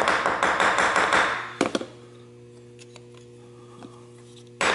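Rapid tapping on a steel workpiece clamped in a milling-machine vise, seating it down onto the parallels. The tapping stops after about a second and a half and starts again near the end, with a low steady hum in the quiet between.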